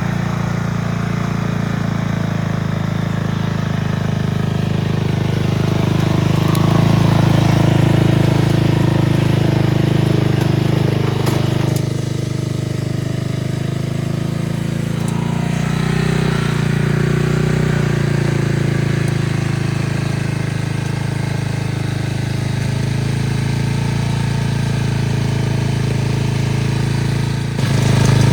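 Riding lawn mower's small engine running continuously as the mower is driven off-road. Its loudness and pitch rise and fall a little with the load, and the sound changes abruptly near the end.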